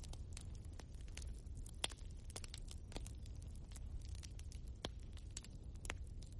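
Log fire in a fireplace crackling: irregular sharp pops and snaps of the burning wood over a low, steady rumble of the flames, with the sharpest pop about two seconds in.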